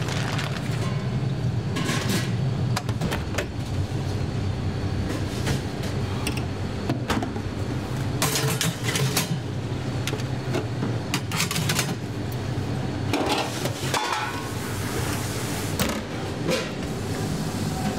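Stainless steel kitchen pans clattering and knocking as they are handled and slid onto the racks of a combi oven, over a steady low hum of kitchen machinery.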